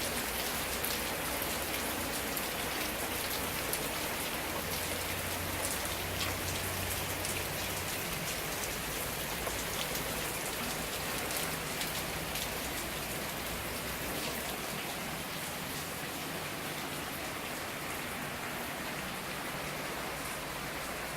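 Heavy rain falling steadily, drops pattering on surfaces with many small distinct hits, easing slightly in the second half.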